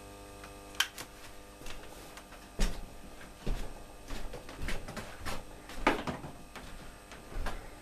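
Steady electrical hum from a forklift battery charger's transformer running under load, overlaid by scattered knocks and handling clatter, the loudest about two and a half seconds in and again near six seconds.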